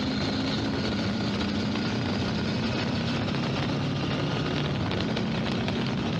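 Husqvarna Norden 901 motorcycle riding at a steady road speed: a constant engine drone under a heavy rush of wind over the helmet-mounted microphone.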